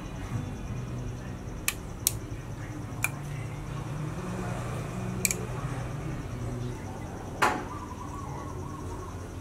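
Low steady hum from a powered-up DIY bridge power amplifier, with a few small clicks, then a louder click and thump about seven seconds in as the speaker protection board's relays switch on.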